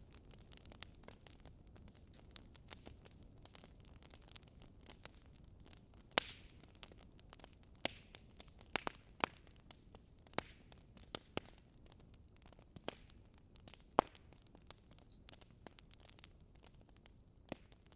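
Faint, irregular sharp clicks and crackles over a low steady hiss.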